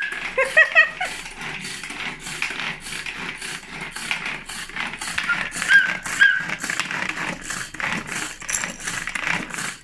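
Prestige pull-cord hand chopper whisking eggs: the cord is pulled over and over, each pull spinning the blades with a quick whirring rattle, in a rapid, even rhythm.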